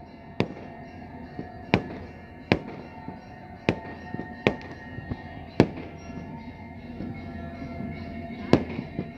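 Fireworks bursting overhead: a string of sharp bangs at irregular intervals, about seven in all, with the last two the loudest.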